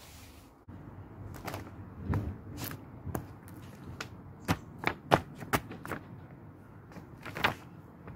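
High-heeled shoes stepping and shuffling on a sheet of paper spread on the ground: irregular sharp taps and paper rustles, the loudest a little past the middle and again near the end.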